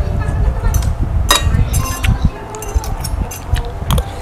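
Metal spoons and forks clinking against ceramic plates during a meal, with a few sharp, ringing chinks about a second and a half in and again near the end, over a steady low rumble.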